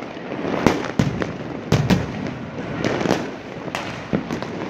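Many fireworks going off at once: a continuous crackle of distant bursts with sharp bangs several times a second, the loudest about a second and two seconds in.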